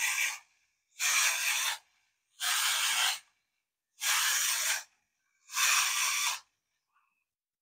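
Winding key of a tin clockwork toy dog being turned in five rasping strokes, each just under a second long, about every second and a half, as the spring is wound up.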